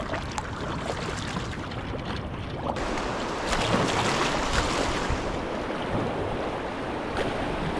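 Kayaks being paddled on river water: water sloshing and splashing around the hulls and paddle blades, with wind noise on the microphone. The rushing gets louder and brighter about three seconds in.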